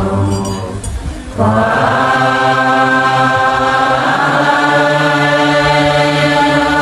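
A large crowd chanting a Buddhist prayer in unison as a slow, sustained melodic chant. The voices thin out briefly and come back in full about a second and a half in, then step to a new note about four seconds in.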